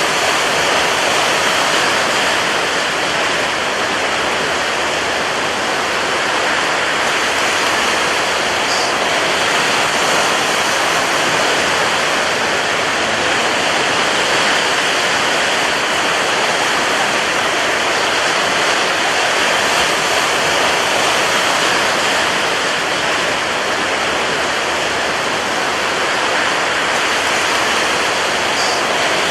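Rough sea and strong wind as one continuous, steady rush of noise, with no separate wave surges.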